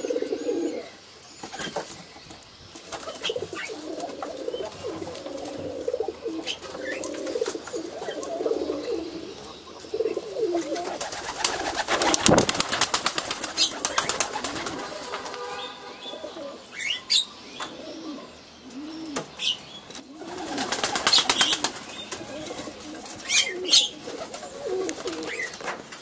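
Domestic pigeons cooing over and over in low, rising-and-falling calls. There are bursts of wing flapping about halfway through and again later.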